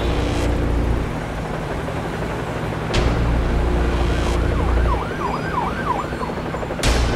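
Emergency-vehicle siren sound effect: over a steady low rumble, a siren yelps rapidly up and down for a couple of seconds from about four and a half seconds in. Short bursts of noise come about three seconds in and near the end.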